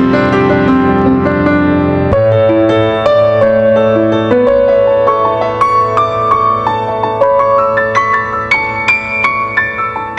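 Piano music: a melody of struck notes over sustained low notes, climbing higher in the second half.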